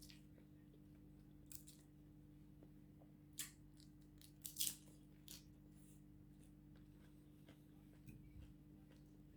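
A person eating, heard faintly: a few short, crisp crunches and mouth clicks, the loudest just past the middle, over a low steady hum.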